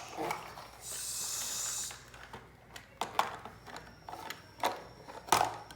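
Small plastic toys being handled: a short scraping hiss about a second in, then several sharp clicks and knocks, the loudest near the end.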